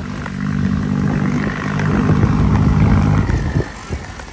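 Tractor diesel engine running steadily, growing louder and then dropping away about three seconds in.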